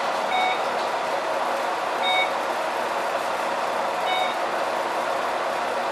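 Cabin noise of a 2002 Neoplan N4426/3 bus with a MAN D2866 12-litre diesel and ZF 5HP602C automatic gearbox: a steady running rumble and hiss. Over it, a short electronic beep sounds three times, about two seconds apart.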